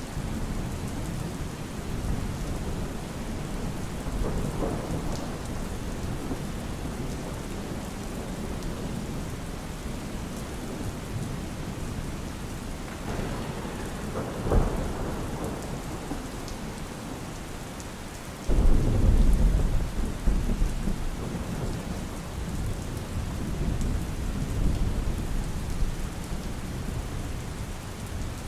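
Steady rain falling, with thunder: a sharp crack about halfway through, then a sudden loud low rumble that rolls on for several seconds.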